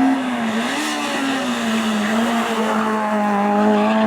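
Hillclimb race car engine running hard at high revs, its pitch dipping and picking up again about a second in, then holding steady.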